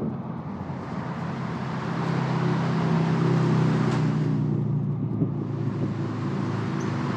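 Yamaha Bolt's air-cooled V-twin motorcycle engine running at low speed, growing a little louder about two seconds in, then settling.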